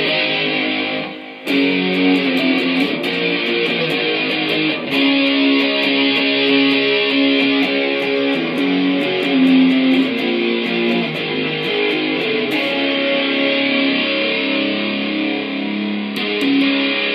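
Electric guitar playing rock riffs. One riff breaks off about a second in, and after a brief gap the next riff starts and runs on.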